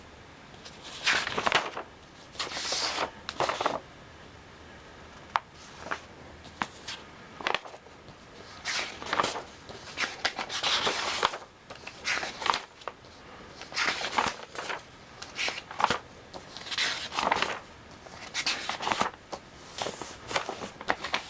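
Irregular handling noises: short rustles and scrapes with a few sharp clicks, and no motor running.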